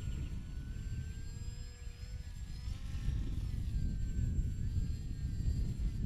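Brushless outrunner electric motor and 10x5 pusher propeller of an RC autogyro, whining as it flies, the pitch wavering up and down. Gusty wind rumbles on the microphone underneath and is the loudest part.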